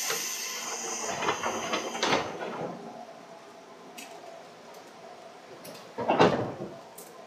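Pneumatic sliding doors of a 205-series commuter train car: a loud hiss of air that fades over the first few seconds, with a door clunk about two seconds in and a heavier one about six seconds in.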